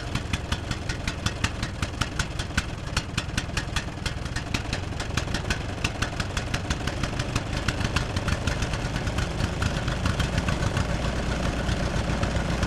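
Tractor engine chugging steadily at idle, a rapid even knocking of about six or seven strokes a second over a low rumble.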